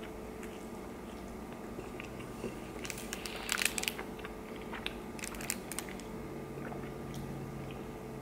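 A person chewing a mouthful of soft beef-and-bean burrito, with a cluster of wet mouth clicks and smacks from about three to six seconds in.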